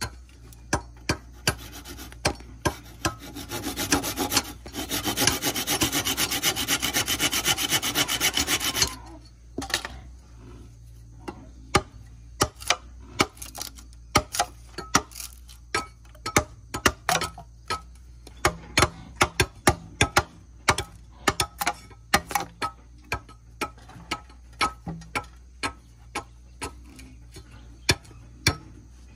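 A handsaw rasps through bamboo for about five seconds. It is followed by a long run of sharp, irregular taps and cracks as a blade chips and works at the end of the bamboo pole.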